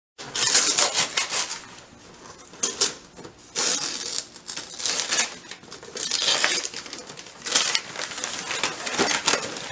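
Wrapping paper and packaging being torn and crinkled as presents are unwrapped, in irregular rustling bursts about a second apart.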